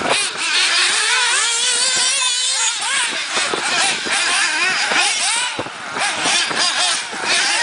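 Several 1/8-scale nitro RC buggies racing, their small two-stroke glow engines revving up and down, several overlapping at once.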